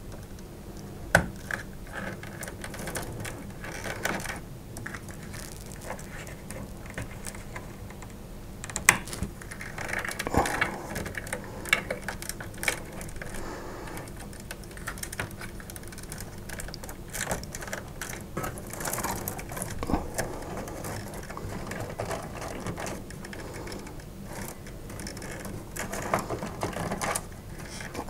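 Irregular clicks, light knocks and rustling of PSU power cables being handled and 6-pin PCI Express power connectors pushed into graphics cards inside a metal PC case.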